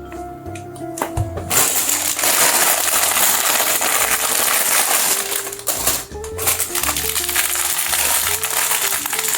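Dense rustling and clattering of a Lego set's packaging and pieces being handled. It starts about a second and a half in, over background music.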